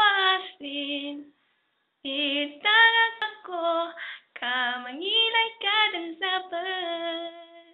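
A female voice singing a melody unaccompanied, in phrases of held notes with short breaks between them, the longest about a second and a half in. The last note is held and fades out near the end.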